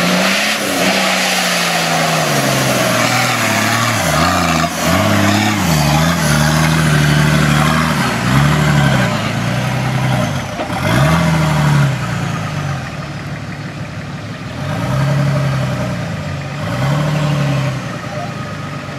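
Nissan Patrol 4x4 engine revving up and down again and again as the vehicle crawls over muddy, rutted ground, loudest about halfway through and easing off near the end.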